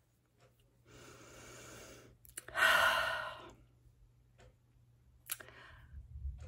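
A woman breathes in, then lets out a long, heavy sigh about two and a half seconds in. It is a weary, exasperated sigh at a trying day.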